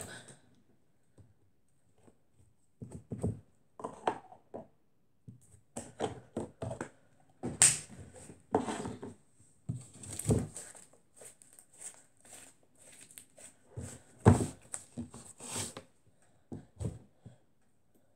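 Hands kneading, pressing flat and stretching pink slime on a wooden tabletop: irregular sticky squishes and clicks with an occasional thunk of a hand on the table.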